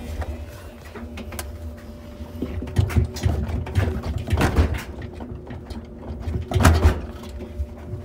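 Front-loading washing machine's steel drum turned by hand with a towel inside: a low rumble with irregular knocks and clicks, swelling a few times.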